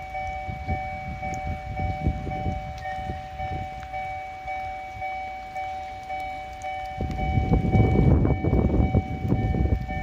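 An electronic railway warning bell rings steadily in two tones. One tone stops about seven seconds in. Underneath is gusty wind on the microphone, and from about seven seconds in the running noise of a Kotoden 1200/1100-series train grows louder as it approaches.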